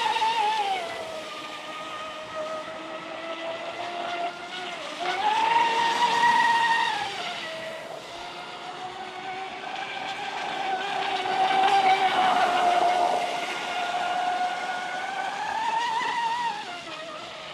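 Traxxas M41 RC catamaran's brushless motor (Rocket 4092 1450Kv on a 6-cell LiPo) and drive whining as the boat runs flat out across the lake. The whine rises and falls in pitch several times: high at the start, again around six seconds in and near the end. It is loudest around six and twelve seconds in.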